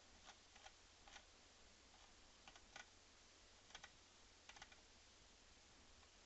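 Faint, scattered clicks of a computer keyboard and mouse, a few at a time, with pauses between.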